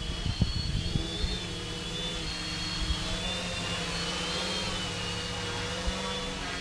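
Electric motors and 10x4.5 propellers of a quadcopter in flight, a steady whine that wavers up and down in pitch as the throttle is adjusted. Low thumps of wind on the microphone in the first second or so.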